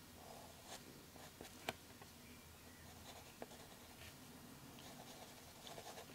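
Faint scratching of a 2B graphite pencil drawing short strokes over chocolate on paper, with a sharp tick about a second and a half in.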